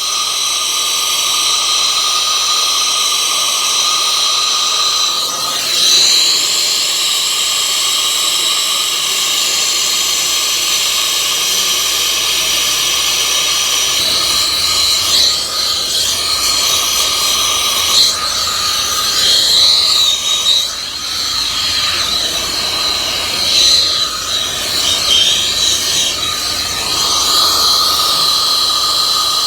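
Soldering torch flame hissing steadily as it heats large copper pipe, with a steady high whistle in the hiss.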